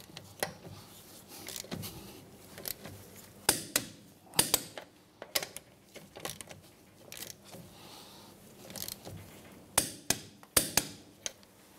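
Torque wrench and socket working around a wheel's lug nuts: a dozen or so sharp, irregular metallic clicks and clacks as each nut is torqued down and the socket is moved to the next one.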